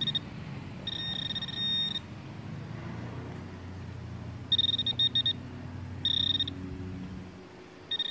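Handheld pinpointer probe sounding in the dig hole: a high, steady beep that switches on and off for about a second at a time, chopped into quick pulses midway, as it is passed close to a buried target, with a low rumble underneath.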